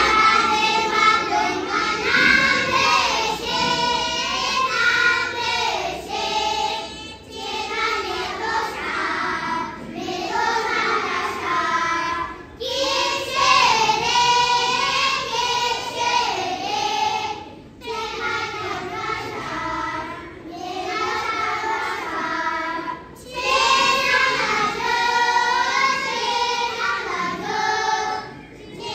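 A group of children singing together in phrases, with short pauses every few seconds between lines.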